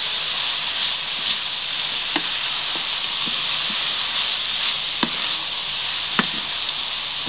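Ground meat, onion and parsley filling sizzling in a stainless steel frying pan as it is stirred with a wooden spoon, with a steady hiss and several short knocks and scrapes of the spoon against the pan.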